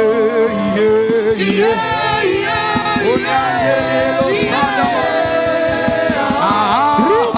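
Church worship music: a keyboard holding sustained chords under wavering sung voices, without clear words.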